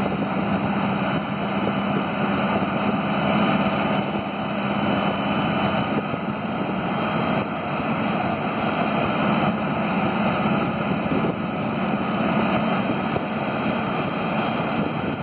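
The Cummins diesel engine of a 1994 Grove TMS-750B hydraulic truck crane running steadily.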